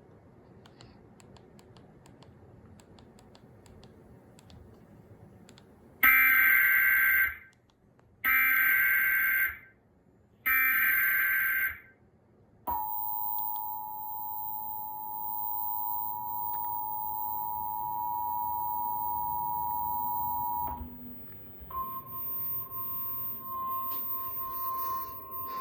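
Emergency Alert System header: three bursts of screeching digital SAME data, then the two-tone EAS attention signal held steady for about eight seconds, then a single steady tone near the end.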